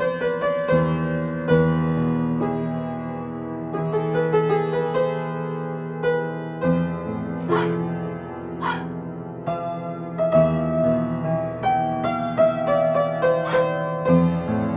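Solo piano played live: sustained chords over low held bass notes, the notes coming faster in the second half. Two short hissing noises sound about a second apart halfway through.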